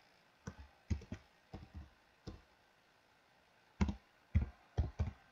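Computer keyboard keystrokes while a file name is typed: a dozen or so short clicks at uneven spacing, with a pause of about a second and a half midway.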